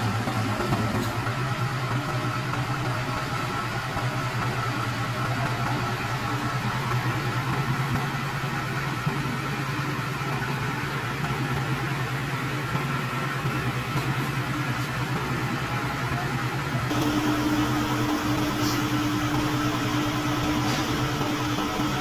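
Self-loader truck's engine idling steadily. About 17 seconds in a higher steady tone comes in, and the lower hum drops away a second later.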